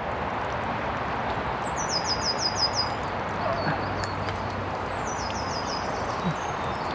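A small songbird singing the same short high phrase twice, each a quick run of about five or six notes, over a steady background rush.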